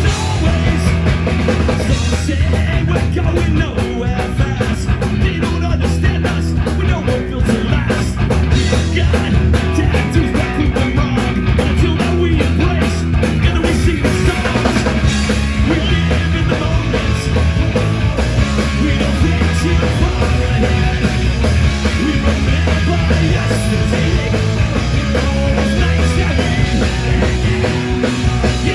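Rock music with a band and drum kit playing loud and steady, likely a live band performance.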